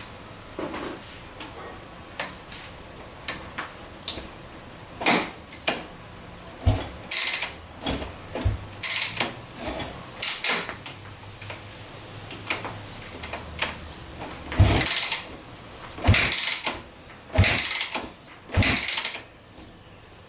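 A 2004 Yamaha YZ250F's four-stroke single-cylinder engine being kick-started over and over without catching: a dozen or so irregular kicks, each a short thump and whoosh of the engine turning over, closer together in the second half. This is the first start attempt after a bottom-end rebuild with a new crankshaft.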